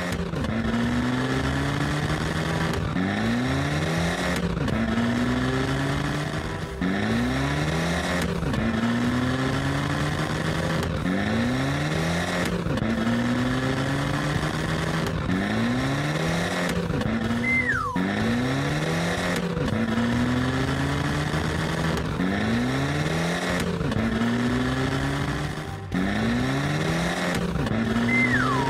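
Race car engine sound effect revving up over and over in rising sweeps about every two seconds, like an engine accelerating through the gears. A short high falling squeal cuts in twice.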